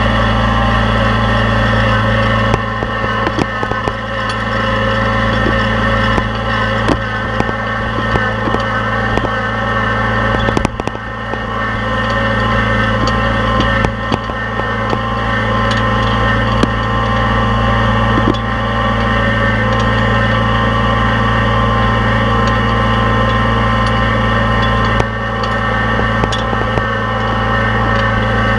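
Engine running steadily at a constant speed, with scattered light knocks and clicks over it.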